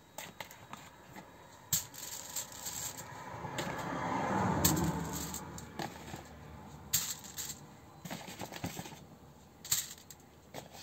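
Aluminium foil crinkling, with small taps and clicks as button mushrooms are set down on it one by one. A longer rustle of the foil swells about four seconds in.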